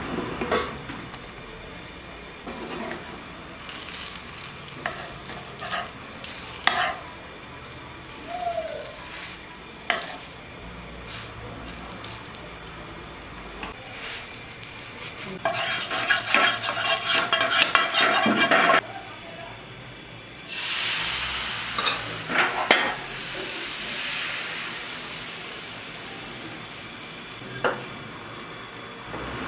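Cooking at a hot pan: metal utensils knock and clink now and then, with a few seconds of rapid clattering around the middle. About two-thirds in, a hiss of sizzling starts suddenly and slowly dies away.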